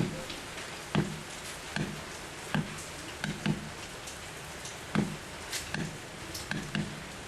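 Steel carving chisels being tapped through water-buffalo rawhide into a wooden block as a wayang kulit puppet is punched out: a series of short sharp taps, about one or two a second and sometimes in quick pairs, each with a dull thud underneath.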